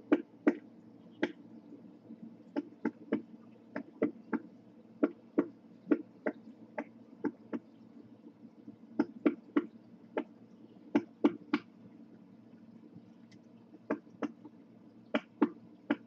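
Pileated woodpecker pecking at a tree trunk: single sharp knocks at an uneven pace, one to three a second with short pauses, rather than a drumming roll.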